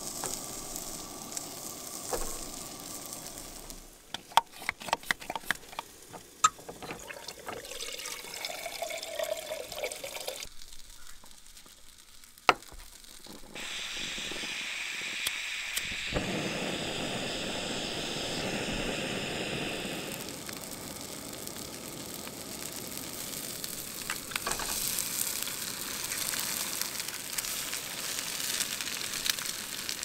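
Food sizzling in pans on a gas camp stove, broken about four seconds in by a run of sharp clicks and a few seconds later by a single click. A steady rushing stretch follows as a Jetboil burner is worked, and near the end eggs and sausages sizzle in a cast-iron skillet.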